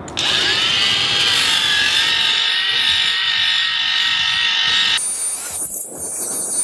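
Makita XAG17 cordless brushless angle grinder starting up with a rising whine as it soft-starts to speed. It then runs steadily with a 3000-grit polishing pad on a stone edge. About five seconds in the tone shifts and briefly dips.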